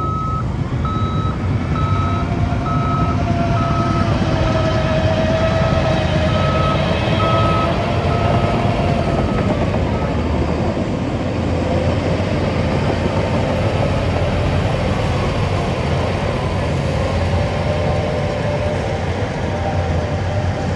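Heavy construction machine's diesel engine running under load, with its reversing alarm beeping at one pitch about once a second until it stops about halfway through. A wavering whine rides over the engine.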